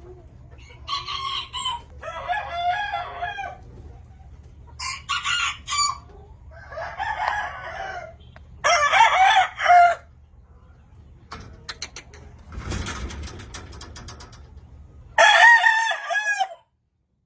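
Gamefowl roosters crowing, several calls in turn with shorter clucking calls between, the two loudest crows about nine seconds in and near the end. A quick run of sharp clicks comes about halfway through.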